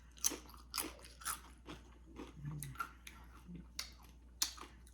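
Tortilla chips crunching as they are bitten and chewed close to the microphone: a string of short, irregular crunches, the sharpest a little past four seconds in.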